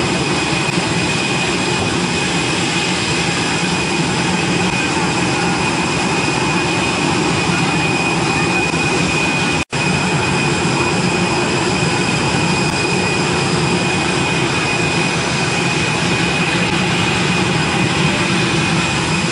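Aircraft jet turbine running steadily: a continuous loud rush with a constant high whine. A momentary dropout comes about halfway.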